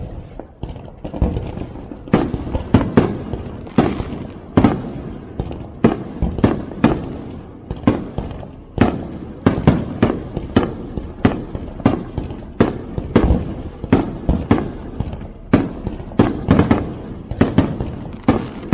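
Aerial fireworks display: a rapid, continuous barrage of shell bursts, roughly one or two loud bangs a second, each followed by a rumbling echo, with crackling between.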